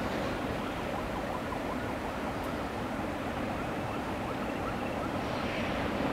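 Steady rumbling noise of a train and road traffic crossing a steel truss road-rail bridge, with no single sound standing out.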